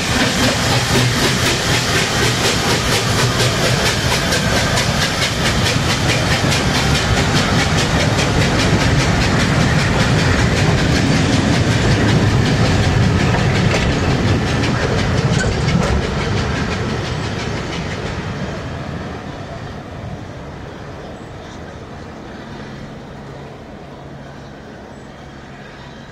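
LNWR Webb Coal Tank no. 1054, a small steam tank locomotive, pulling out with its vintage coaches: a rapid, even beat of exhaust and wheels as the engine and carriages pass close by, fading steadily over the last ten seconds as the train draws away.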